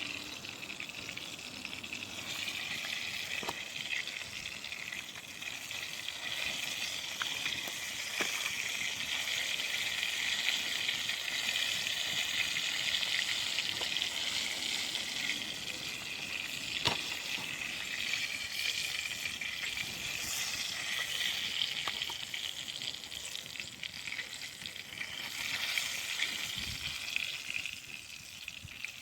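Food frying in hot oil in a pan, a steady sizzle with a few small pops.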